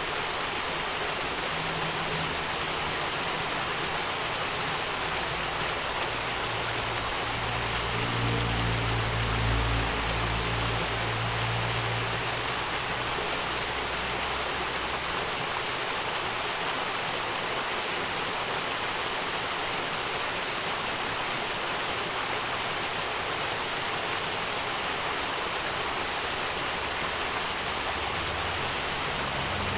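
Small wild mountain stream rushing and splashing steadily, water pouring over a little water wheel. A faint low rumble swells briefly about eight seconds in.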